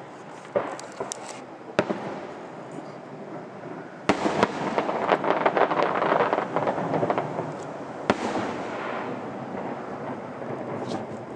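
Distant fireworks display: a few sharp bangs, then about four seconds in a dense run of crackling pops lasting a few seconds, followed by one more sharp bang and a fading rumble.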